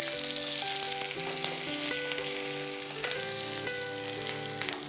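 Hot oil sizzling steadily in a small tempering pan, with green chillies frying in it alongside mustard seeds.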